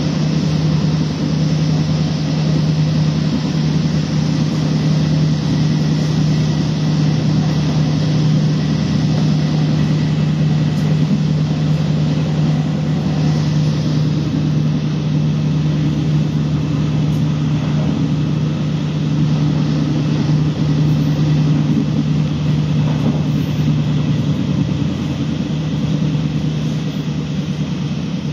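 Steady running noise inside a passenger train carriage moving at speed: a constant low hum over an even rushing rumble.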